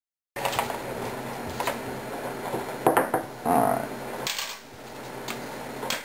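Clinks and knocks of metal AK-47 underfolder stock parts being handled on a workbench, over a steady low hum.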